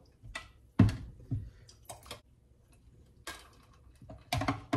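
Metal ladle clinking and knocking against a glass pitcher and glass as lemonade is ladled over ice: a string of separate clinks, the loudest about a second in, with a quick cluster near the end.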